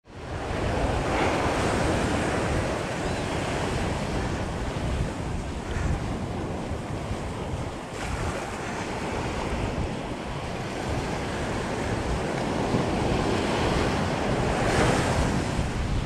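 Small ocean waves breaking and washing up a sandy shore, swelling louder about a second in and again near the end, with wind buffeting the microphone. The sound fades in at the start.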